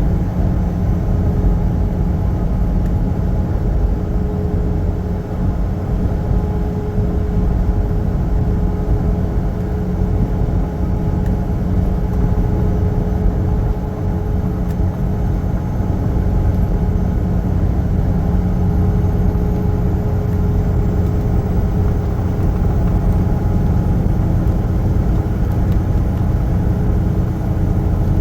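Semi truck driving along: a steady low engine drone with road rumble, unchanging throughout.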